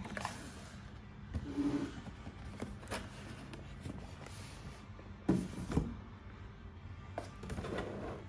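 Packaging being handled during an unboxing: scattered knocks, taps and rustles over a steady low background hum, the loudest a pair of knocks about five seconds in.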